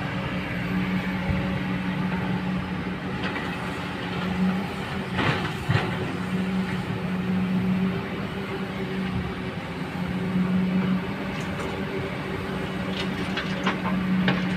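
Hydraulic excavator's diesel engine running steadily, its note swelling under load in several stretches. Scraping and clanks about five seconds in and again near the end.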